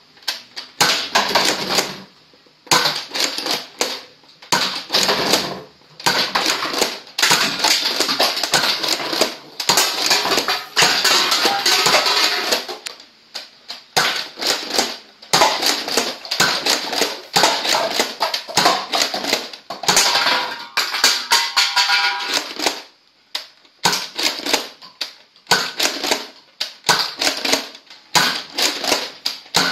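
Buzz Bee Air Warriors Thermal Hunter foam dart blaster being worked and fired again and again, with plastic toy cans and bowling pins clattering as they are knocked down. Sharp clicks and rattles come in quick clusters with short pauses between them.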